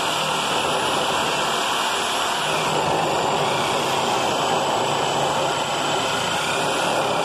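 Handheld electric sheet metal shear running steadily as it cuts through thin-gauge sheet steel.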